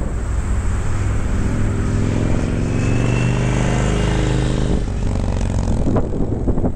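Indian Thunder Stroke 111 air-cooled V-twin motorcycle running through aftermarket TAB Performance exhaust baffles. It revs up in one slow sweep and falls back, then gives a quick throttle blip about six seconds in.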